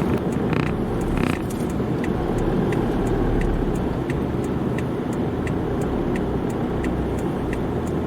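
Car interior noise while driving: steady road and engine rumble heard from inside the cabin. From about two seconds in, a light tick repeats about every 0.7 seconds.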